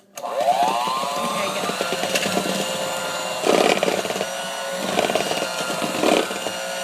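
Electric mixer switched on, its motor whine rising as it spins up and then holding at a steady speed as it beats cake batter, with louder clattering a few times from about three and a half seconds in.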